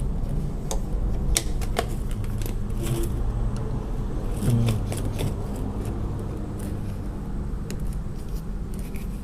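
A plastic washing-machine drain hose being cut to size: a few sharp snips and clicks in the first few seconds, then handling noise over a steady low hum.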